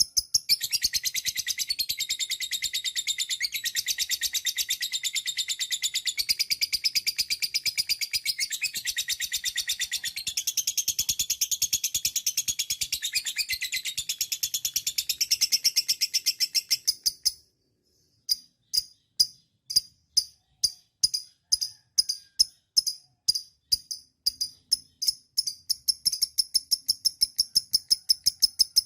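Lovebird 'ngekek': a long, fast, high-pitched chattering trill of rapidly repeated chirps. It breaks off about 17 seconds in, then resumes as separate chirps about two a second, speeding back up into a rapid trill near the end.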